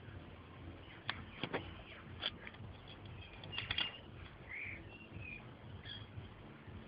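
A few faint knocks and scuffs from a dog nudging a soccer ball along the ground, with a cluster of them a little past halfway. Birds give a few short chirps near the end.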